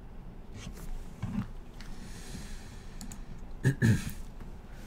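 A few faint, scattered clicks of a computer keyboard, with a short low vocal sound near the end.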